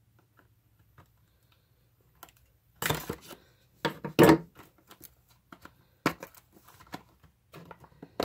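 Folding knife cutting and scraping at a small cardboard box, with the box handled and rustled on a wooden table. The first few seconds are nearly silent; then come short bursts of scraping, the loudest about four seconds in, followed by a few small clicks.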